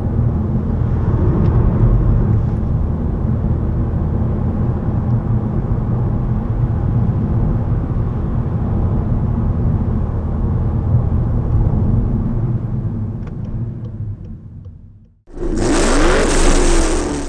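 Inside the cabin of a VW Golf 7 driving: the 1.5 TSI Evo turbocharged four-cylinder petrol engine hums steadily under road and tyre rumble, then fades out near the end. A loud rushing logo sound effect with sweeping tones follows.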